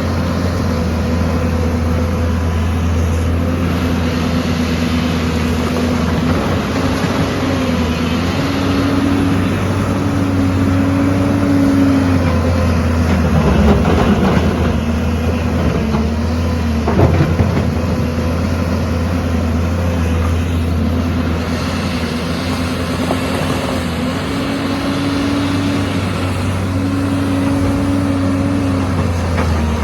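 Diesel engine of a heavy construction machine running under varying load, its note stepping up and down repeatedly, with a couple of sharp knocks or clanks about halfway through.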